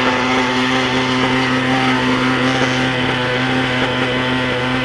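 Radio-controlled helicopter's fuel-burning engine running at a steady speed, a loud even buzzing drone that holds one pitch.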